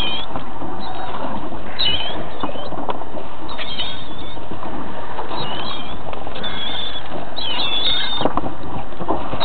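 A boat's engine runs steadily under a constant rushing noise, with short high squealing bird calls every second or two.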